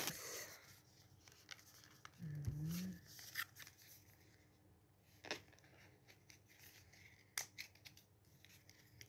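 Scattered crinkles, tears and clicks of packaging as a small cosmetics palette is unwrapped and handled, with a short hum from the woman about two and a half seconds in.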